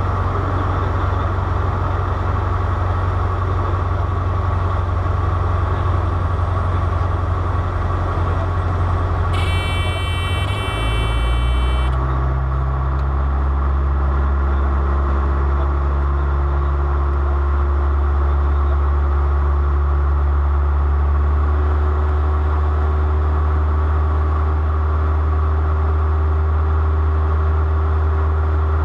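Aircraft engines droning steadily at a low pitch, the drone dropping to a lower, steadier note about eleven seconds in. Just before the change, a high electronic tone sounds for about two and a half seconds.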